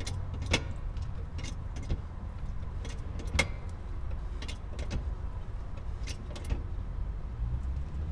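Scattered light clicks and knocks, irregularly spaced, over a steady low rumble.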